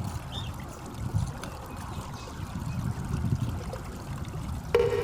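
Flowing water with a low, uneven rumble, like a stream trickling. Near the end a steady pitched sound starts suddenly.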